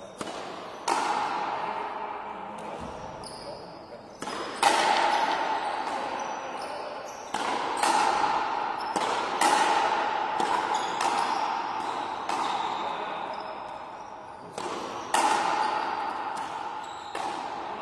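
Frontenis rally: the hard rubber ball cracking off stringed rackets and smacking against the fronton's front wall, a sharp strike every second or so, about a dozen in all. Each strike rings out in a long echo through the large hall.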